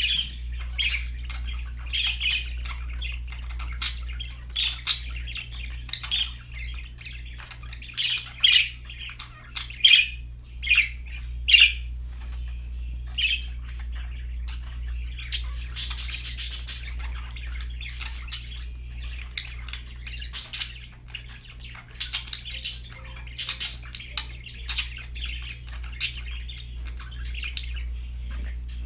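Budgerigars chirping and chattering in a stream of short calls, with a run of louder, sharp calls from about eight to twelve seconds in and a dense burst of chatter about halfway through.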